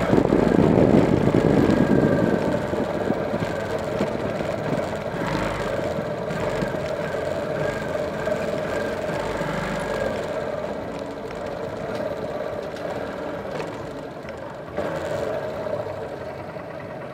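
Motorcycle engine running at low speed with wind rush on the microphone at first, easing off as the bike slows and settling toward idle near the end.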